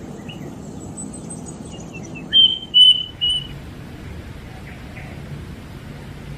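A bird calling: three loud, short whistled notes in quick succession about halfway through, after faint high twittering.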